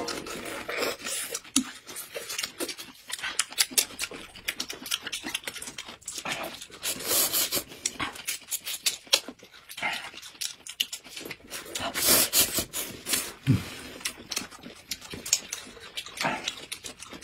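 Close-miked eating sounds: wet slurping, sucking and chewing as hand-peeled bamboo shoots are bitten and noodles slurped, with many sharp, crisp mouth clicks.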